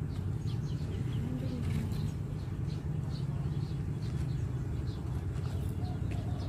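Small birds chirping over a steady low rumble.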